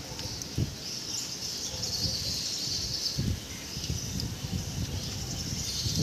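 Rain falling and wind gusting through trees, with wind buffeting the microphone in irregular low thumps.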